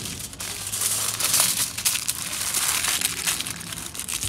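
Aluminium foil crinkling and rustling as it is folded and crimped by hand into a packet.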